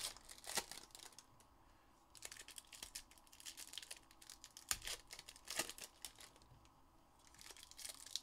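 Foil wrappers of Topps Formula 1 trading-card packs being torn open and crinkled by hand, in scattered sharp crackles and rustles.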